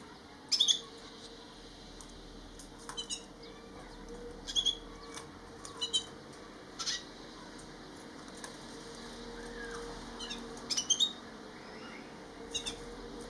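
Gouldian finch giving short, high-pitched calls, about seven separate bursts spaced one to three seconds apart, the loudest about half a second in. A faint steady hum runs underneath.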